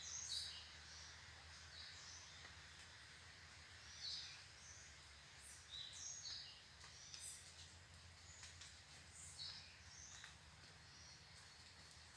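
Faint birds chirping: many short, high notes scattered irregularly over a faint steady hiss.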